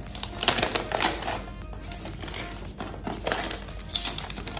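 Protective paper wrap rustling and crinkling as it is peeled off a laptop, in two bouts, about half a second in and again near the end, over background music.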